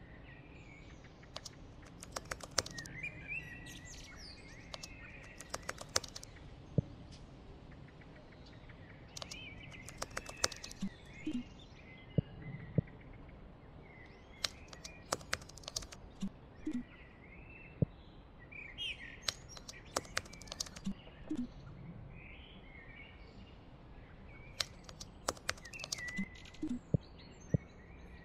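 Birds chirping in short, scattered calls over a faint steady background hiss, with many sharp clicks in between.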